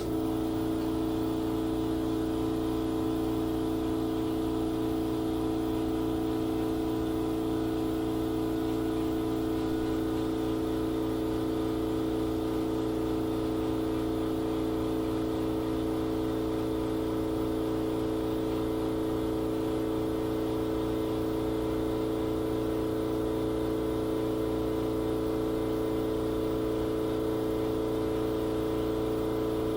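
Car2Go ET36 car fridge's LG compressor and cooling fan running during a cooling test after repair: a steady mechanical hum with a couple of strong pitched tones. It comes on suddenly at the start and stays constant.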